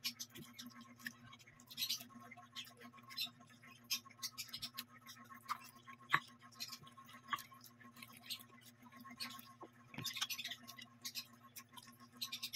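Close eating sounds: a person chewing and smacking wet mouthfuls of rice and chicken eaten by hand, heard as many short, irregular clicks. A faint steady hum lies under them.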